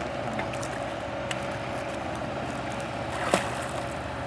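A hooked bighead carp splashing once, sharply, at the water surface about three seconds in, over a steady low drone with a faint hum.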